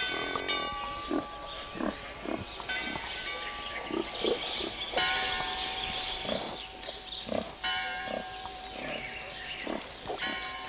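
Pigs grunting, with short low grunts and, every two or three seconds, higher drawn-out squeals.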